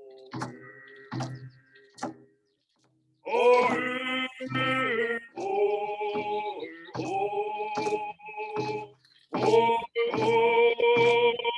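Several voices singing a ceremonial drum song over a steady drumbeat of a little over one stroke a second. Drum and voices stop briefly about two seconds in, then the singing comes back in louder.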